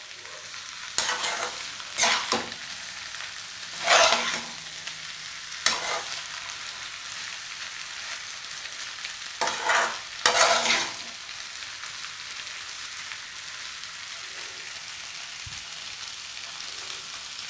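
Noodles and vegetables sizzling steadily in a frying pan over a high flame, with a metal spatula scraping and tossing them in irregular strokes, the loudest about four and ten seconds in.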